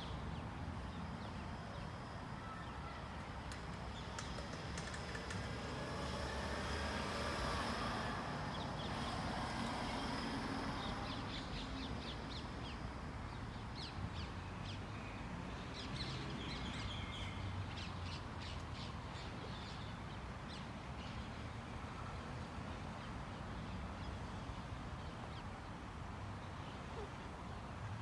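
Outdoor ambience: birds calling and chirping over a steady background noise, with a run of quick high chirps partway through.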